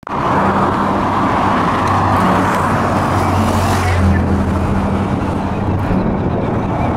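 Cars and SUVs driving past on a country road, a steady mix of engine and tyre noise.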